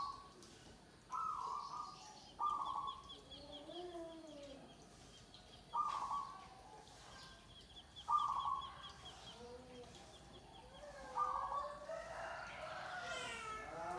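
Zebra doves (perkutut) cooing in short repeated phrases, one every two to three seconds, with a fast thin chirping in the background and a busier run of calls near the end.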